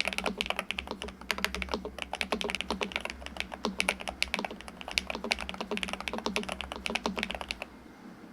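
Fast, continuous typing on a Nuphy Halo65 HE magnetic (Hall-effect) keyboard fitted with Magnetic Jade Pro linear switches and double-shot PBT cherry-profile keycaps, giving a rich, deep keystroke sound. The typing stops about a second before the end.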